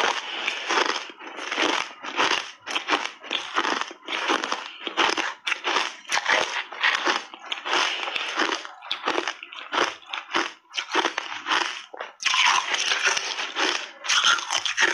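Close-miked chewing of hard frozen cola ice bars coated in matcha powder: a rapid, continuous run of sharp crunches, about three a second, as the ice is ground between the teeth.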